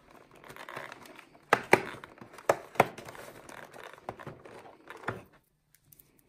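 A perforated cardboard door on an advent calendar is pushed in and torn open with crinkling, rustling handling and several sharp snaps, the loudest in the middle. A foil-wrapped miniature peanut butter cup crinkles as it is pulled out.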